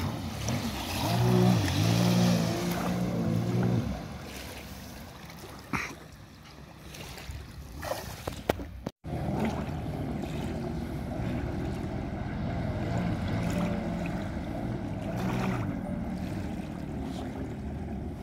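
Jet ski engines running: a close engine's note rises and falls for the first few seconds, then, after a brief dropout about halfway, a steady engine drone continues.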